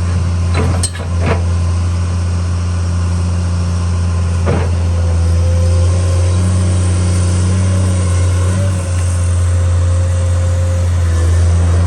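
Komatsu PC210-10M0 hydraulic excavator's diesel engine running at a steady speed. Three sharp knocks come in the first half, and a thin steady whine runs for several seconds in the second half.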